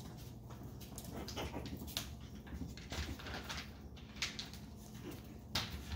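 Chihuahua puppies playing on a tile floor: scuffling and little claw clicks, with a few small puppy squeaks. The sharpest click comes near the end.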